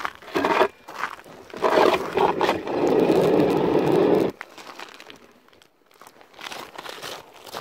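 Footsteps crunching on snow-covered lake ice, with close rustling at the microphone. A dense, loud stretch of crunching stops abruptly just past the middle, and fainter, scattered crunches follow.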